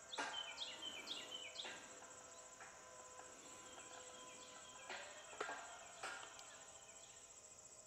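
Crickets trilling steadily in the evening, with a faint steady hum from the solar tracker's linear actuators tilting the panel racks, and a few soft clicks.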